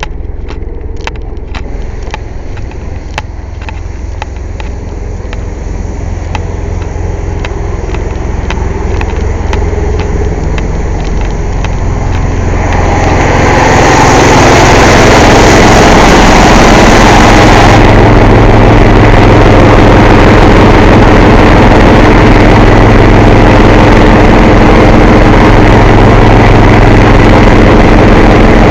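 Air compressor running with a steady low engine-like hum that grows much louder about 13 seconds in and stays loud. A brighter hiss sounds for a few seconds just after it swells.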